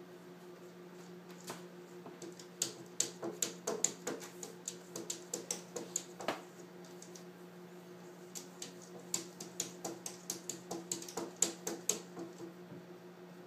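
Cat's paws and claws tapping and scratching against window glass, irregular runs of sharp clicks several a second, over a steady low hum.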